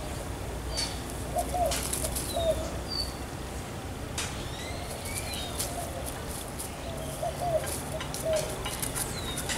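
Birds calling: scattered high chirps and whistles, and short low calls in clusters of two or three, about a second and a half in and again about seven seconds in. A few sharp clicks or rustles stand out, the loudest about two seconds in.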